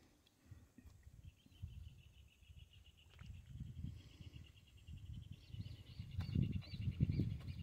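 An insect trilling in a fast, steady pulsed buzz, starting about a second in. Low rumbling underneath grows louder near the end.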